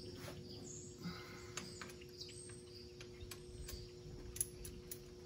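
Faint scattered clicks and taps of hand tools being picked up and handled, over a steady low hum.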